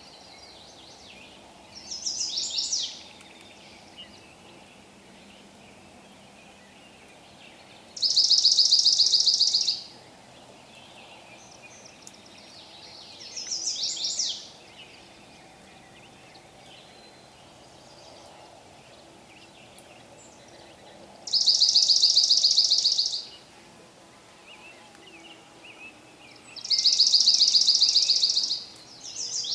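Forest ambience: a songbird repeats a loud, rapid, high trill lasting a second or two, three times, with shorter falling chirps in between, over a faint steady background.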